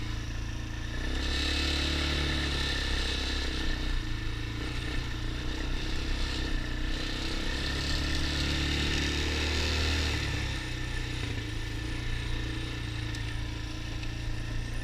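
ATV engine running while the quad is ridden, picking up about a second in, holding steady, then easing off at about ten seconds.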